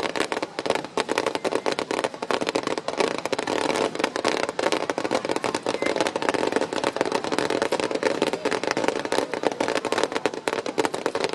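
Fireworks display at the height of a barrage: a dense, unbroken stream of pops, bangs and crackling from many shells and crackle stars bursting at once.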